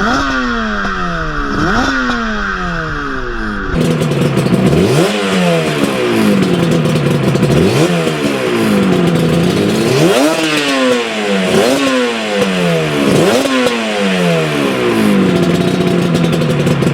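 Yamaha TZR250 3MA's two-stroke twin engine being revved, several quick throttle blips, each rising sharply in pitch and falling away slowly, then settling to a steady idle near the end.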